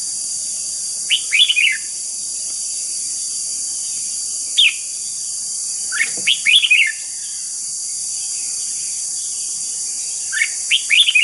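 Red-whiskered bulbul singing: four short bursts of quick, fluid whistled notes, with the longest phrase about six seconds in. A steady high hiss runs underneath throughout.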